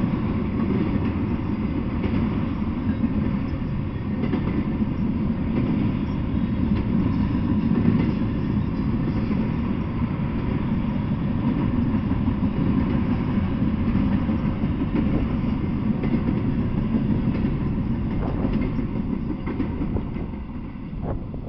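Double-stack intermodal freight train's loaded well cars rolling past on the rails with a steady rumble, fading away near the end as the last car goes by.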